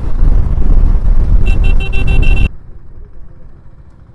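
Wind rumble on the riding camera's microphone at highway speed, with a vehicle horn sounding a rapid string of short toots about one and a half seconds in. The loud rumble and the horn cut off suddenly just past halfway, leaving only faint background noise.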